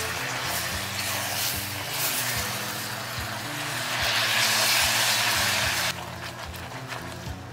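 Hot caramel bubbling and hissing in a stainless saucepan as heavy cream is stirred in with a silicone spatula. The hiss swells about four seconds in, as more cream meets the hot sugar, and drops off abruptly near the end. Soft background music runs underneath.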